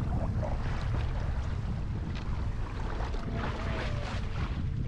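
Small rental boat under way on a lake: a steady low rumble of wind on the microphone, mixed with water noise.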